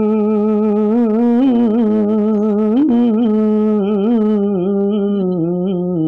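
Unaccompanied naat singing: a single voice holding one long note through the whole stretch, decorated with wavering melismatic turns, settling slightly lower about five seconds in.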